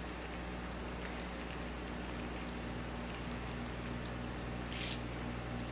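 Faint wet squishing and rustling of batter-coated dasheen leaves being rolled up by hand, with a short crinkle near the end, over a steady low hum.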